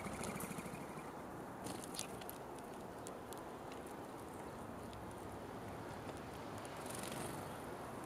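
Outdoor feeding-station ambience: scattered small clicks and taps of birds and squirrels picking at seed, over a steady low background noise.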